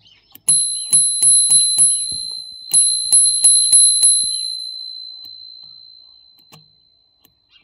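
RockBros copy of a Spurcycle bicycle bell struck by its thumb-flicked spring striker: two quick runs of five dings, a short pause between them. Each strike carries a light metallic click, and the high, thin ring then fades out slowly over about three seconds.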